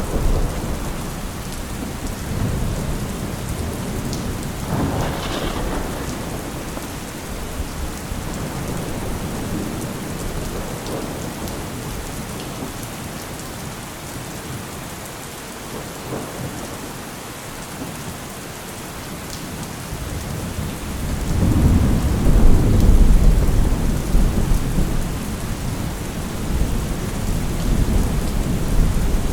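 Steady rain falling, with rolling thunder rumbling underneath. The thunder fades in the middle and then builds again to a loud, long rumble past the midpoint.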